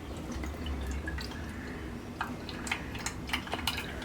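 Freshly blended juice being strained: liquid dripping and trickling through a strainer, with a few light clicks scattered through it.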